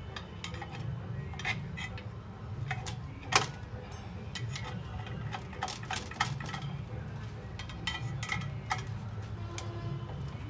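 Irregular metallic clicks and clinks of a socket on a long extension bar working the bolts of a car's clutch pressure plate while the plate is being removed. One sharp clink stands out about a third of the way in.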